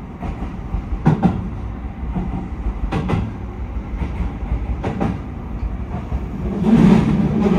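Keio 5000 series electric train running, heard from inside the driver's cab: its wheels click over rail joints in pairs about every two seconds over a steady rumble, and the running noise grows louder near the end.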